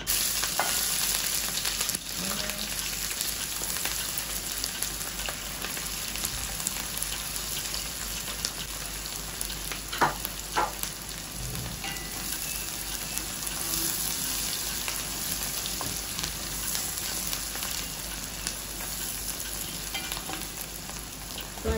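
Chopped red onions frying in hot vegetable and coconut oil: a steady sizzle that starts suddenly as they go into the oil. There are a couple of sharp knocks about halfway through, and a wooden spoon stirs them near the end.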